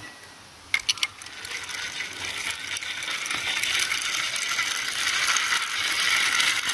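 Small plastic toy water-tanker truck set down on concrete with a few sharp clicks about a second in, then pushed back and forth by hand, its wheels and mechanism giving a continuous grinding rattle that grows steadily louder.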